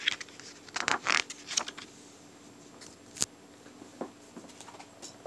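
A paper page of a picture book being turned and laid flat: a short rustle of paper about a second in, then a single sharp click about three seconds in and a few light taps.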